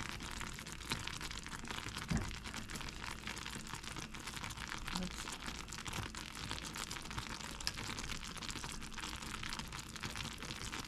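Butter toffee mixture of butter, sugar and corn syrup boiling in a pan, a steady fine crackling sizzle of bursting bubbles as it cooks toward 290°F. A dull thump about two seconds in.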